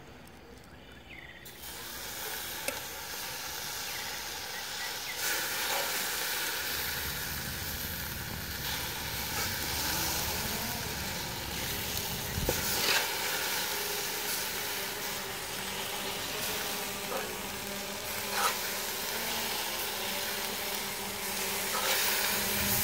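Wet, beer-braised chicken thighs sizzling and hissing on a hot charcoal grill grate. The sizzle starts about a second and a half in and builds as more pieces go down, with a few sharp clicks of metal tongs on the grate.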